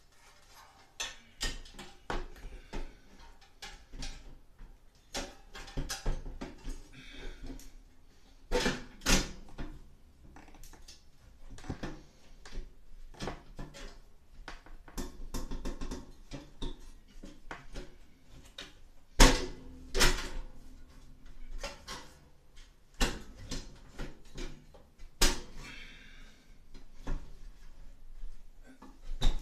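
Irregular metallic clanks, knocks and scrapes of a Broan 655 bathroom heater/fan unit's sheet-metal box being handled, hooked onto its mounting tabs and pushed up into its ceiling housing, with a few louder knocks among quieter rattling.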